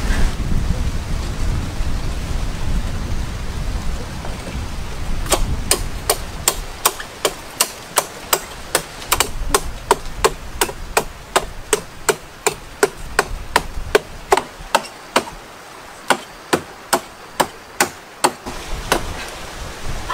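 Sharp chopping strokes into the stalk of a palm-fruit bunch, evenly spaced at about two to three a second, starting about five seconds in and stopping near the end. Before the strokes begin there is a low rumbling noise.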